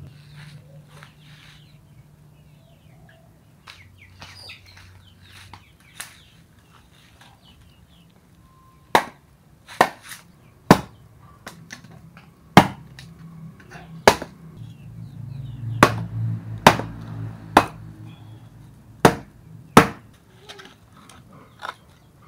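Wood being chopped with a blade, about ten sharp strikes at uneven intervals starting about nine seconds in, with chickens clucking in the background.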